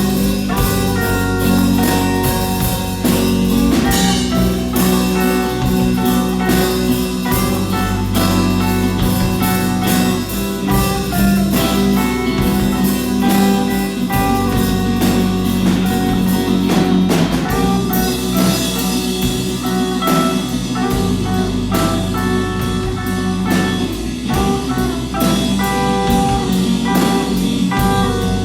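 A band playing a song, with a drum kit keeping a steady beat under guitar and held low bass notes.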